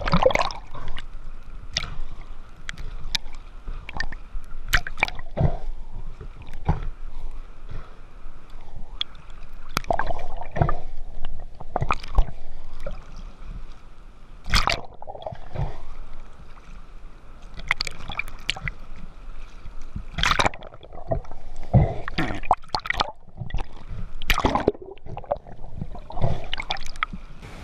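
Water sloshing and gurgling around a diver's action camera as it moves between the surface and underwater, with irregular splashes and bubbling.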